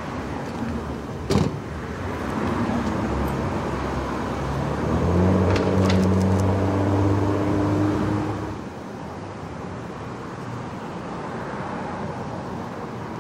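Street traffic noise, with a motor vehicle's engine running loudly close by for about four seconds in the middle before it drops away suddenly. A single sharp click sounds near the start.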